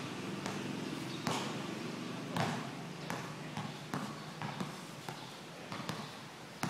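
Basketball being dribbled on a concrete court: sharp bounces at about two a second, unevenly spaced.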